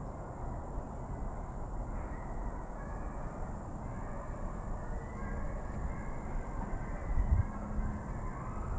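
Wind rumbling on the microphone, with stronger gusts thumping near the end. Faint, broken higher tones come and go in the background.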